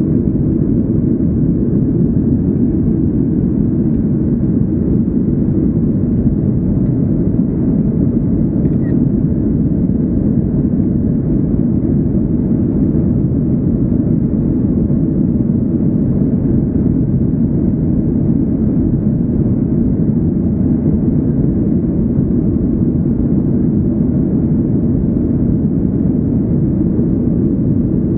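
Steady cabin noise of a Boeing 737-800 climbing after takeoff: the CFM56-7B engines' drone and the airflow make an unbroken low rush, with no change in level.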